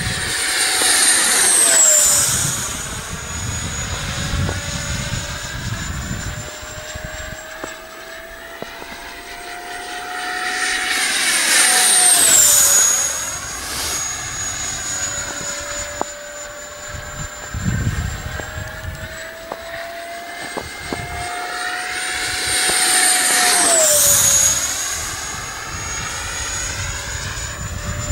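Freewing MiG-21 RC jet's electric ducted fan whining on three fast low passes, each swelling in loudness as it approaches and dropping in pitch as it goes by, about two, twelve and twenty-four seconds in.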